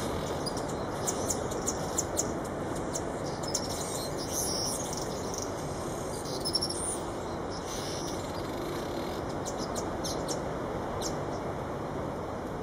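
Male Rüppell's weaver singing its breeding-season song: a run of high, rapid ticking and chattering notes, densest about a second or two in and again around the middle, over a steady background hiss.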